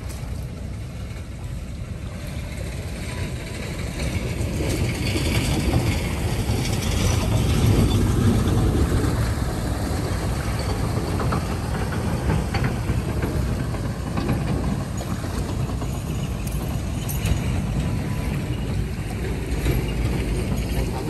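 Shallow muddy water sloshing and splashing as a person wades and gropes through it by hand, over a steady low rumble, with scattered small knocks.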